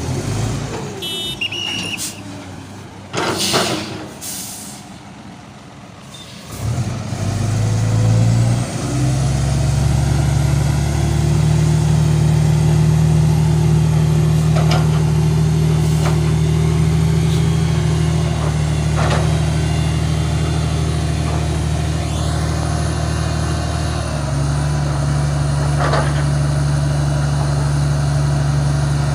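Short air hisses in the first few seconds. Then, from about seven seconds in, a heavy diesel truck engine runs with a loud, steady, deep drone that eases slightly later on.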